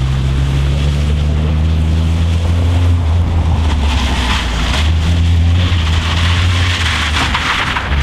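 Volkswagen Golf Mk2 rally car's engine running under load as the car drives along a loose gravel stage, its note holding fairly steady and dipping briefly a couple of times. A rushing tyre-and-gravel noise swells around the middle and again near the end.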